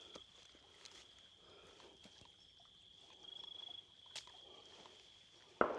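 Steady, high-pitched trilling of insects, with a louder pulsing stretch about three seconds in. A sudden sharp bang comes near the end.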